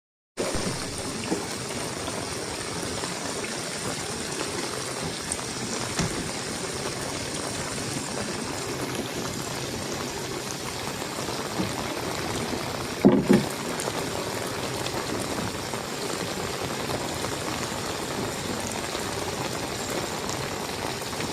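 Heavy rain falling in a steady, dense hiss. About two-thirds of the way through there is one short double knock.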